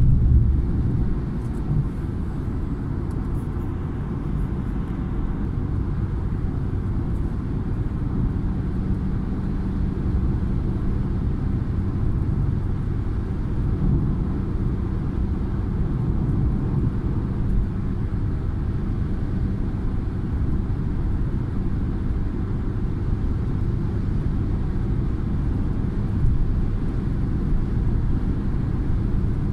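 Steady low rumble of a car's tyres and engine heard from inside the cabin while cruising on a motorway, with a faint even hum.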